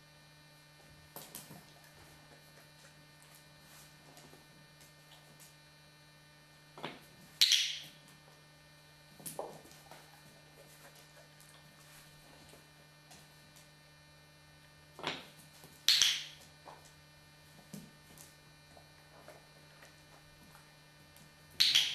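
Steady low electrical mains hum, broken by a few sharp clicks or knocks: two close together about a third of the way in, a smaller one just after, two more about two-thirds through, and a loud one near the end.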